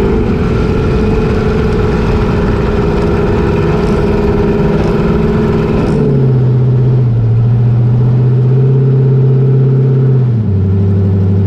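Racing jet boat's engine heard from the cockpit, running hard with rushing water and wind noise. About six seconds in, the noise eases and the engine note drops, then steps down once more near the end as the revs come down.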